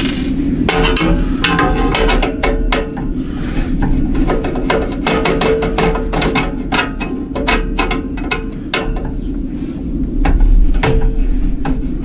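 Irregular metallic clicks and knocks of a screwdriver working screws out of a steel mining-rig case, over a steady low hum.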